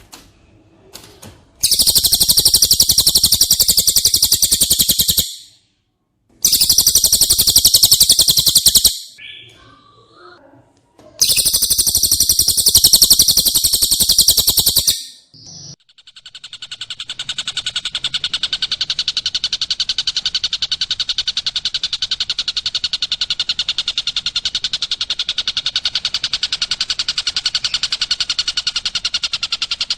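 Bird-song tutor recording of cililin and tengkek buto calls: very fast, high-pitched trills. Three loud bursts of a few seconds each come with short gaps between them, then from about halfway one unbroken rapid trill runs on.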